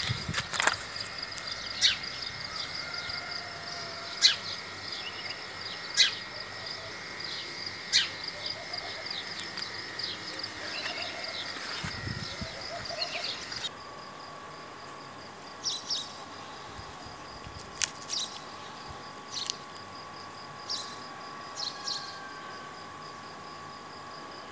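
Crickets chirping in a steady fast pulse, with sharp clicks every second or two. The background changes abruptly about fourteen seconds in, where a faint steady hum takes over under the chirping.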